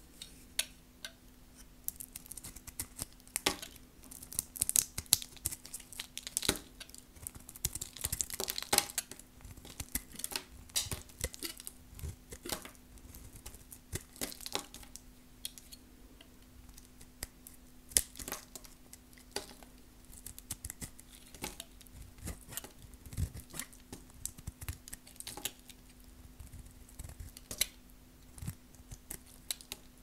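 A knife cutting and carving very dry, hard soap: many crisp, irregular crunches and cracks, with a brief scraping stretch about a quarter of the way in.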